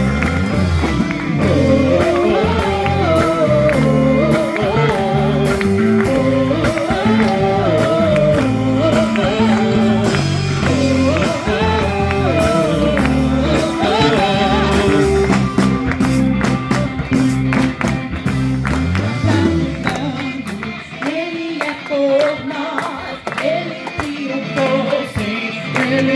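Gospel worship song intro: a wavering melody line over steady bass notes, with light percussion. About 20 seconds in the bass drops out and the music thins before the verse.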